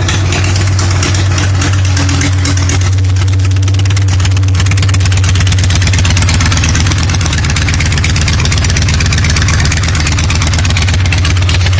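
1979 Harley-Davidson FXS Low Rider's Shovelhead V-twin engine idling steadily, with a low, pulsing exhaust note.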